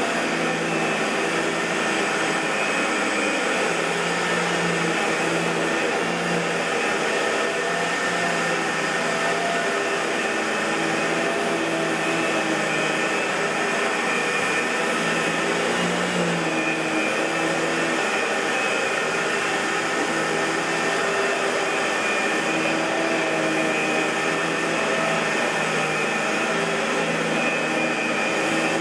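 A Fantom Lightning bagless canister vacuum cleaner running steadily, its motor giving a constant whine over a rush of airflow.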